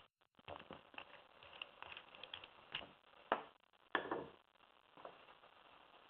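Small metallic clicks and scraping from a BYP dimple lock cylinder being handled with a key or pick, with a few sharper clicks about three and four seconds in.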